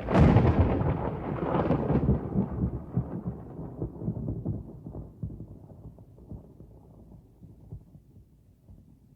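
Thunder sound effect: a sudden sharp crack with a second burst about a second and a half later, then a long rolling rumble that slowly dies away.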